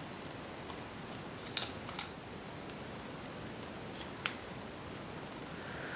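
A few short, sharp clicks and snips from hands working with tape and paper on a paper model gun, two close together about two seconds in and another a couple of seconds later, over a low hiss.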